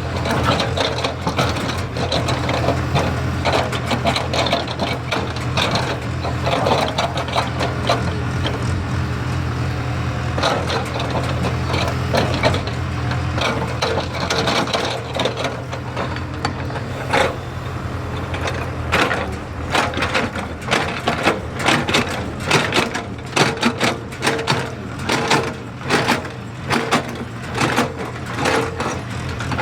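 JCB excavator's diesel engine running steadily under work, with repeated knocks and crunching from the bucket and material. The knocks come thicker and louder in the second half.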